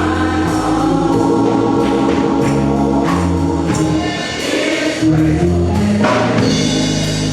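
Gospel choir singing over sustained instrumental chords, with organ among the instruments.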